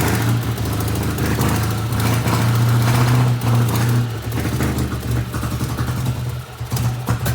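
Panhard Dyna Z1's rebuilt air-cooled flat-twin engine running steadily just after its first start in 37 years, a little louder for a couple of seconds in the middle.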